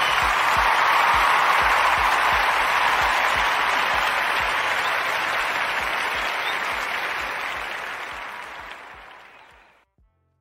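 Recorded applause over outro music with a steady low beat, loudest about a second in, then fading out slowly until it stops just before the end.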